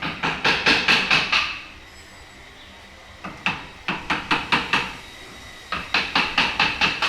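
Woodcarver's chisel being struck with a hammer in quick runs of taps, about six a second, with a bright ring on each strike. Three runs: one at the start, one about three seconds in, and one near the end.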